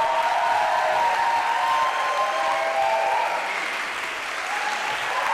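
Audience applauding, a dense steady clapping that eases a little about four seconds in, with a few steady held tones sounding beneath it.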